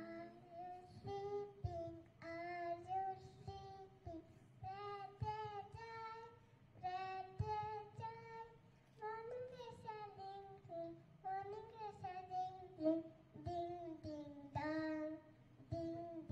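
A small child singing a song into a microphone, the tune moving up and down in short phrases with held notes.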